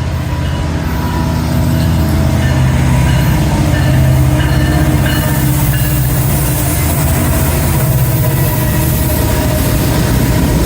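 A train running past: a diesel locomotive's low, steady engine rumble, loudest about four seconds in, with a rising rush of wheels on the rails taking over from about halfway.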